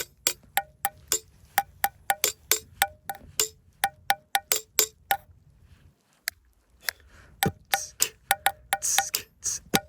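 A metal spoon clinking repeatedly against a metal camping mug, about three quick ringing clinks a second, with a short pause just past the middle.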